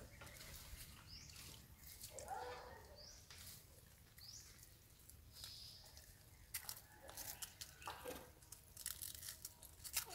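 Faint rustling and crackling in dry leaf litter, with scattered sharp crackles thickening in the second half. A few short, high rising chirps come in the first half.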